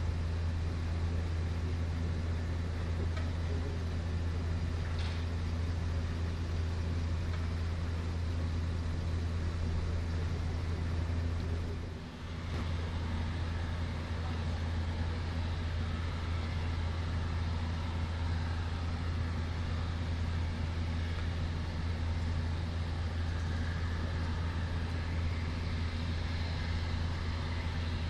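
Embraer regional jet's turbofan engines running at taxi power: a steady low hum with a thin whine that grows a little stronger near the end, dipping briefly about twelve seconds in.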